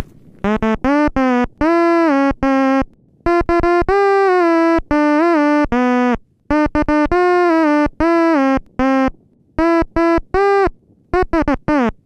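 Otamatone-style synth playing a nursery-rhyme melody of choppy short notes and longer held ones. Some notes slide into pitch, and one wavers briefly about halfway through.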